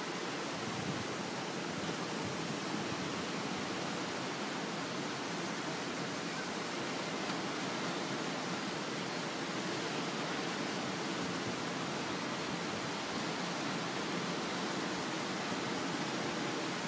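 Steady wash of surf breaking along a sandy beach, an even hiss without distinct wave crashes.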